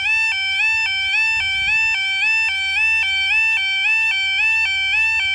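Automatic half barrier level crossing alarm sounding: a loud two-tone yodel, stepping quickly and evenly back and forth between two pitches. It warns that the barriers are down and a train is approaching.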